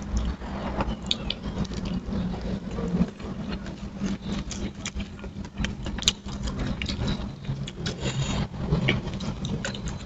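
Close-up eating sounds: wet chewing and mouth clicks, with fingers tearing at fried chicken and rice on a banana leaf, making a scatter of short clicks and rustles. A steady low hum runs underneath.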